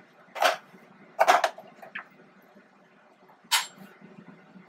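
A spoon knocking against a plastic container while squash slices are mixed, and spice jars clattering on the counter: four or so sharp knocks, the loudest a double knock about a second in. A faint steady hum from a preheating air fryer runs underneath.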